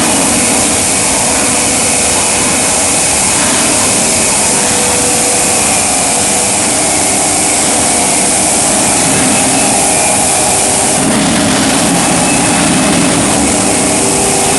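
High-frequency welding line for I-beams running: a loud, steady machine noise with a hiss and a few faint steady hums, with no breaks.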